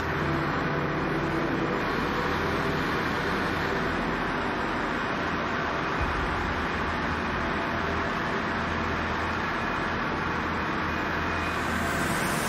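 Steady drone of a fishing boat's engine-room machinery running, a dense even noise over a low hum that holds level throughout.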